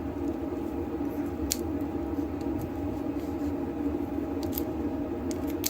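A few faint clicks of small metal lock pins and springs being handled in a deadbolt cylinder, over a steady mechanical hum.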